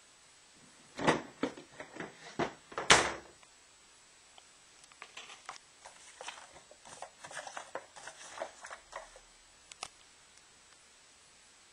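Handling noise at a closet: a cluster of sharp knocks and bumps in the first three seconds, the loudest about three seconds in, then a scattered run of lighter clicks and rustles.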